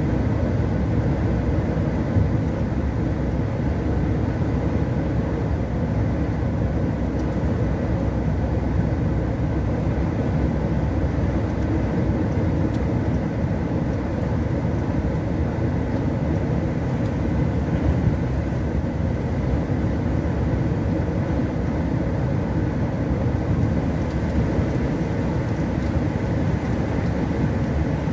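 Steady engine and tyre noise inside a vehicle cruising on a motorway, a low rumble that holds even throughout.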